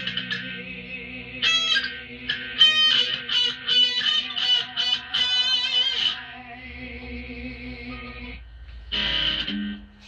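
Electric guitar played through effects: a quick run of picked notes over held, ringing tones, which die away about six seconds in. A short louder burst follows near the end.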